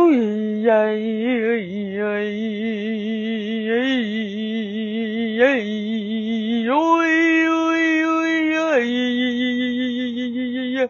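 A single voice chanting long wordless tones with a wavering, bending pitch. It steps up to a higher held note about seven seconds in and drops back to the lower note about two seconds later.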